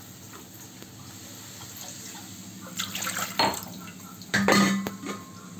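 Water poured from a steel bowl into a pan of simmering kadhi to thin it as the gram flour thickens, with clinks of steel utensils. It comes in two spells, the second and loudest near the end.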